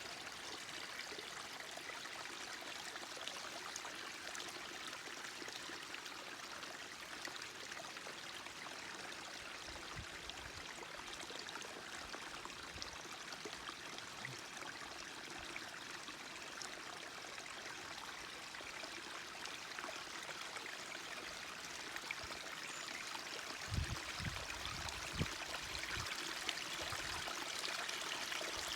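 Forest stream flowing steadily, an even rushing trickle of water. A few brief low thumps come near the end.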